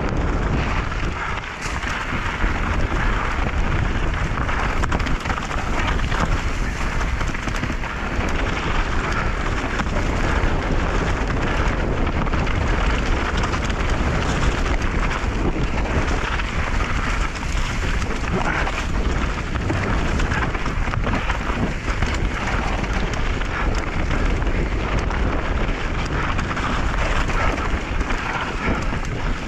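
Mountain bike descending a rocky dirt trail at speed: tyres rolling and crunching over dirt and stones, the bike rattling with many small knocks over the bumps, and wind rumbling on the microphone.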